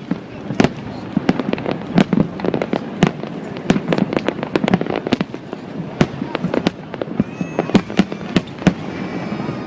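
Fireworks display bursting: many sharp bangs and cracks in rapid, irregular succession, several a second, over a continuous rumble.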